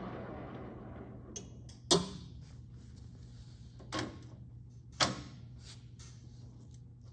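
MSC 14x40 gap-bed engine lathe spinning down, its spindle cut by the chuck-guard safety switch. Then come three sharp clunks of its control levers being worked, about two, four and five seconds in, over a low steady hum.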